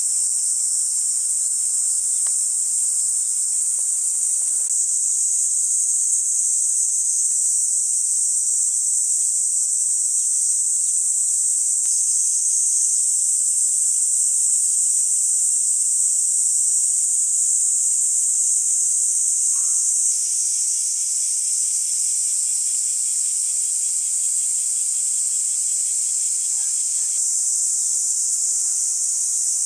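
Steady, high-pitched chorus of singing insects. A second, fainter pulsing insect trill joins it for several seconds about two-thirds of the way in.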